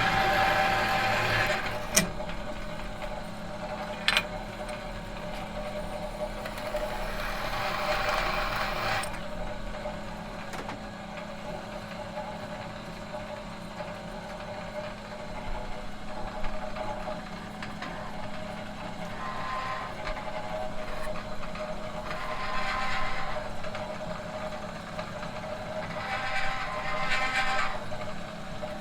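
Metal machine humming steadily, a low hum with a higher metallic tone over it, and rushes of hiss that swell and fade several times. Two sharp clicks come about two and four seconds in.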